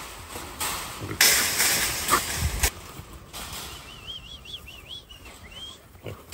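Trapped feral hogs running inside a pen of steel wire corral panels: a rush of hooves with several sharp knocks and rattles in the first three seconds, the loudest about a second in. A songbird sings a warbling phrase from about four seconds in.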